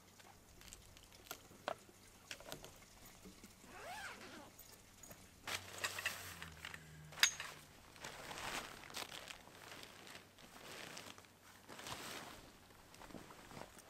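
Fabric of a tent carry bag rustling and crinkling as it is opened and the packed tent is pulled about, with scattered sharp clicks and knocks of straps and buckles, the loudest click about seven seconds in.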